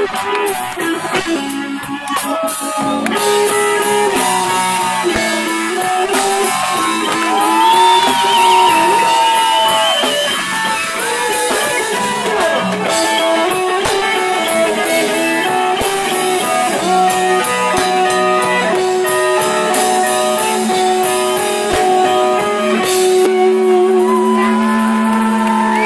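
A live rock band playing, with electric guitar and drum kit.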